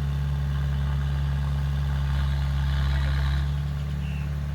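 Heavy machine's engine running steadily with a low drone; it swells slightly about two seconds in and eases back near the end.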